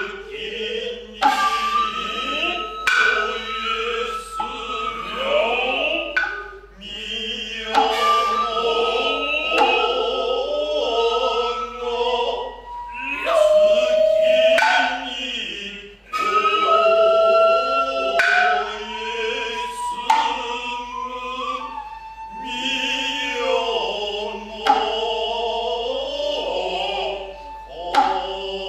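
Noh hayashi music: a bamboo nohkan flute holding high notes that slide between pitches, hand drums struck sharply at irregular intervals every few seconds, and low drawn-out male voices in the Noh vocal style.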